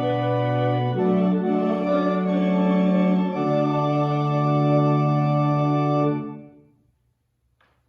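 Church organ playing the final held chords of a hymn, its bass note changing twice, then released about six seconds in, the sound dying away within the following second.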